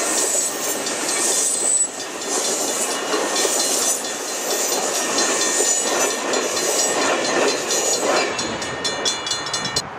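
Amtrak Superliner bi-level passenger cars rolling past at speed, wheels clattering over the rails with a thin, high squeal. The last car goes by near the end and the clatter thins out.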